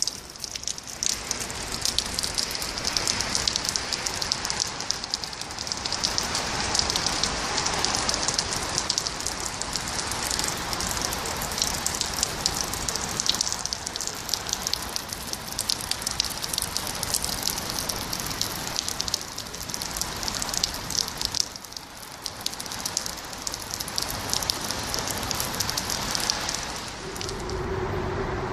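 Steady rain falling, a dense patter of fine drops. A steady low hum comes in near the end.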